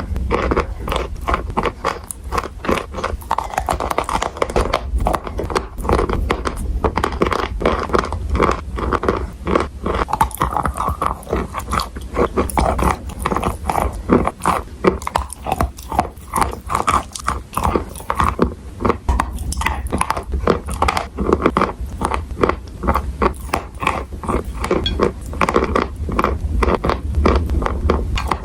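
Edible chalk and clay being bitten and chewed: a continuous run of dry crunches, several a second.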